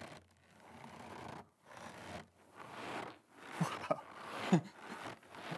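A bag of cornstarch squeezed in a run of about six short crunches, one every second or so: the Foley trick for footsteps crunching through snow.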